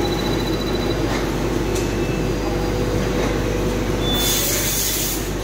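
Steady machine hum from an automatic armature testing machine, with a burst of compressed-air hiss about four seconds in that lasts about a second, typical of a pneumatic cylinder venting.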